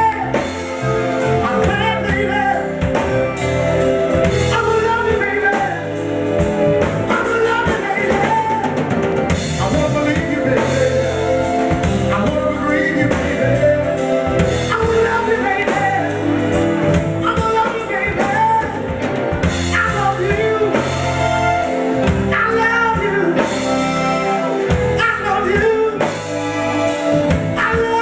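Live soul and R&B band: a male vocal group singing over drum kit and electric guitar.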